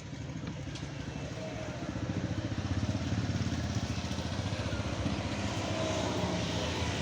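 A steady low motor rumble with a fast, even pulse, a little louder from about two seconds in.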